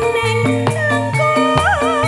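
Javanese campursari music: struck gamelan metallophone notes over a stepping low bass line, with a woman's voice coming in about a second in and turning and bending through an ornamented melodic phrase.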